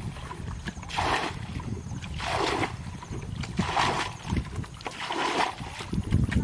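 Muddy ditch water being bailed out by hand with a bucket: four splashes of scooped and thrown water, one about every second and a half.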